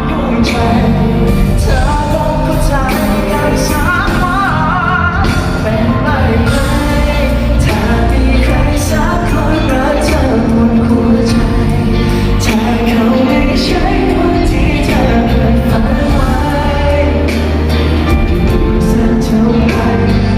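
Live Thai pop song: a singer over a full band, with steady drum hits and a heavy bass line.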